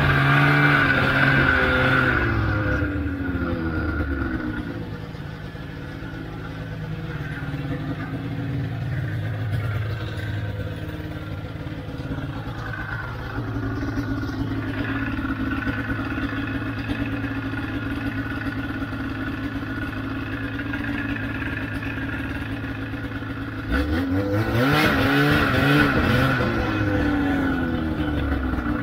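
Old Ski-Doo Formula Z snowmobile's two-stroke engine revving up and down, then running steadily at low revs, then revving up and down again near the end.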